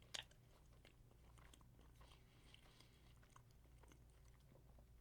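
Faint mouth sounds of someone chewing food, with small wet clicks. One slightly louder click comes just at the start; otherwise the sound sits close to silence.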